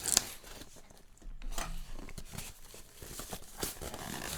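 Rustling and crinkling of packaging being handled and pulled apart while unboxing a microphone, with a sharp rustle right at the start and irregular crinkling through the rest.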